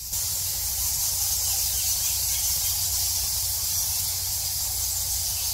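The massed squeaking of a huge colony of Geoffroy's rousette fruit bats, blending into a steady, dense, high-pitched hiss that gets louder just after the start.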